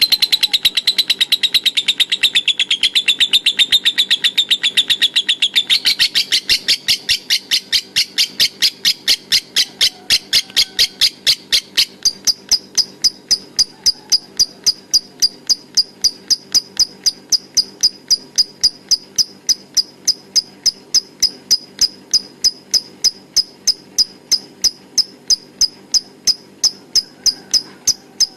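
Lovebird ngekek in the 'konslet' style: a long, unbroken run of rapid, evenly spaced high chirps, about three to four a second. Fuller and buzzier over the first few seconds, it narrows to a sharper, higher tone from about twelve seconds in.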